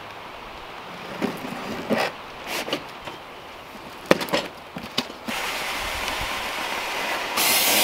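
A cardboard shipping box being cut open and handled: a few sharp snips and knocks as the packing straps and tape are cut with scissors, then a steady scraping rustle of cardboard rubbing as the upturned box is slid off its foam packing, louder near the end.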